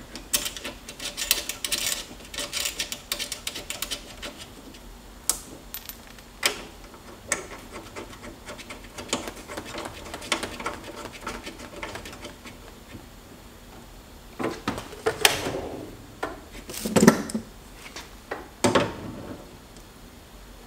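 Handling noise as a plasma cutter's torch lead is fitted to the machine's front socket: scattered clicks, scrapes and rattles of the metal connector and cable, with a few louder knocks later on.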